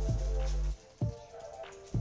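Background music with deep held bass notes and a steady beat.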